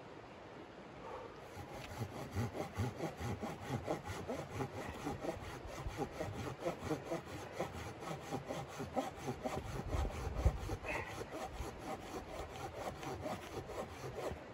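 Hand saw cutting through wood in steady back-and-forth strokes, about three a second, starting about two seconds in.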